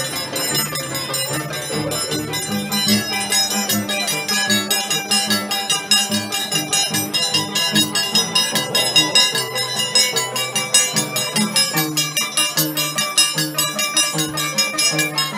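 Andean band music with a steady, even beat and sustained bass notes.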